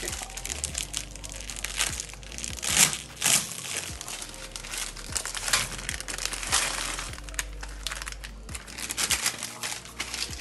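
A plastic spaghetti packet crinkling and rustling in the hand as the dry spaghetti is tipped out of it into a pot of water. The crackles are loudest about three seconds in, over a steady low hum.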